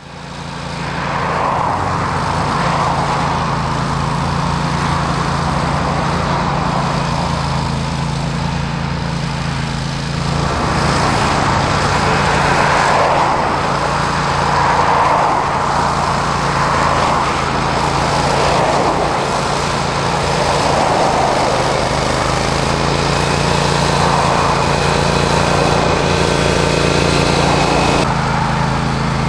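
Scamper walk-behind flail mower running steadily, its engine droning with a low hum under the noise of the flail rotor cutting through long grass. The sound fades in over the first second.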